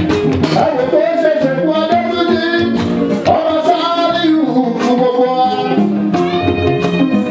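Live Fuji music: a male lead singer sings into a stage microphone over a band with steady percussion.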